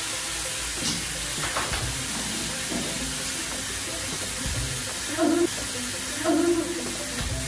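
Slices of meat sizzling on a flat electric griddle, a steady frying hiss. Two brief low sounds stand out about a second apart just past the middle.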